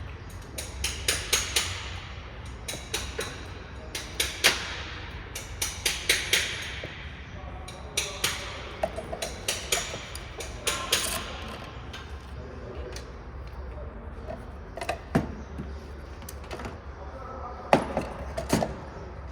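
Irregular clusters of sharp clicks and metal knocks from hand tools and parts being handled during the fuel pump and filter job, over a steady low hum.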